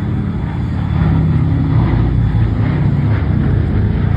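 Boeing B-17 Flying Fortress's four Wright Cyclone radial piston engines droning with a deep, pulsing rumble, swelling during the first second and then holding steady.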